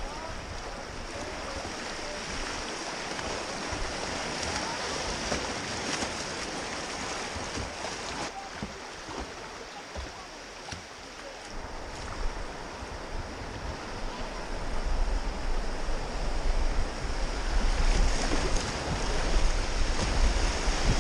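Fast river current rushing and splashing close around a kayak, with paddle strokes in the water. From about 15 seconds in it gets louder as the kayak runs into white-water rapids, with low buffeting of wind on the onboard camera's microphone.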